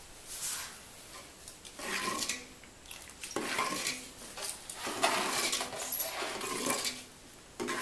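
A metal ladle stirring and scraping in an aluminium pot, clinking against the metal in several short spells.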